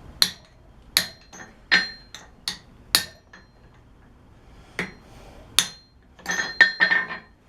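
Hammer tapping a forged steel candle holder, each strike with a short metallic ring. The taps come about one every three-quarters of a second, then after a pause there are two more and a quick cluster of clinks near the end. The holder is being closed up slightly because it is a touch too big for its glass jar.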